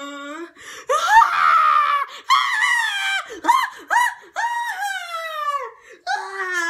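A very high-pitched, cartoon-style voice screaming and wailing, with a run of short rising-and-falling yelps in the middle and a long falling wail starting near the end.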